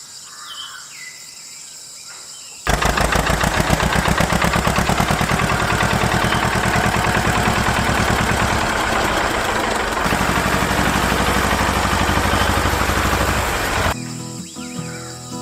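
Birds chirping, then a small motor-driven machine starts abruptly about three seconds in, runs loudly and steadily with a fast buzzing rattle for about eleven seconds, and stops suddenly.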